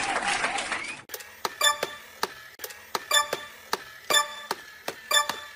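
Rhythmic ticking clicks, about two a second, each with a short ringing tone, like a clock's tick-tock. They start about a second in, after a brief bit of higher-pitched voice-like sound.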